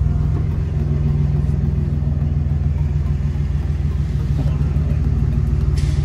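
Ram 3500 pickup's diesel engine running steadily at low speed as the truck rolls slowly, heard from inside the cab as a low rumble with a steady hum. A brief click near the end.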